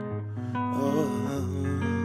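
Background music: an instrumental passage with plucked guitar-like notes over a steady bass.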